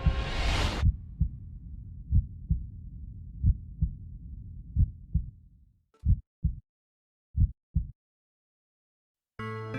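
Heartbeat sound effect: paired low thumps, lub-dub, about every second and a quarter, over a low rumble that dies away around six seconds in. A few more beats and a short silence follow, and music comes in near the end.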